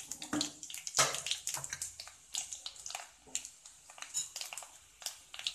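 Mustard seeds, fennel seeds and whole urad dal frying in hot oil in a kadai, with irregular crackles and pops as the mustard seeds splutter, the sign that the oil is hot enough for the tempering. The sharpest pop comes about a second in.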